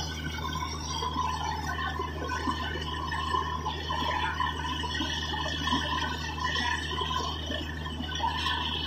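Borewell drilling rig running steadily with a constant low hum, while water and slurry blown up out of the borehole splash and hiss around the drill rod.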